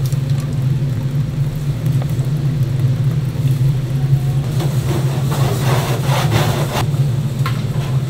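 A steady low machine hum runs underneath throughout. Over it, thick syrup pours from a spouted plastic pouch into a stainless steel stock pot of sauce, the splashing pour loudest for a couple of seconds past the middle.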